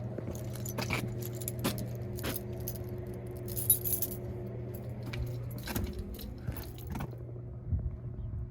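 Keys jangling and scattered clicks and knocks as someone climbs up through an attic access, with a brief bright jingle of keys about four seconds in and a few heavier knocks near the end. A steady low hum runs underneath.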